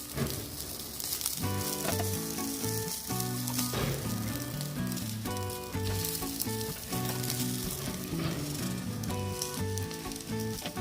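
Food sizzling steadily on the heat, with background music whose melody comes in about a second and a half in.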